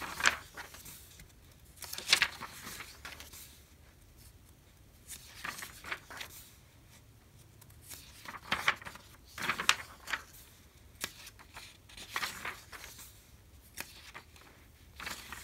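Thin magazine pages being turned by hand in quick succession: a short papery swish and flap with each page, coming every second or few, the sharpest about two seconds in.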